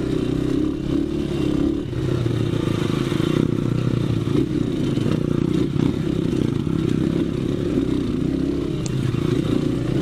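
Dirt-bike engine running steadily, its revs rising and falling only slightly.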